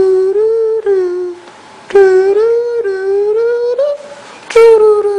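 A high voice, likely a child's, humming long, wavering notes in three phrases with short breaks between them.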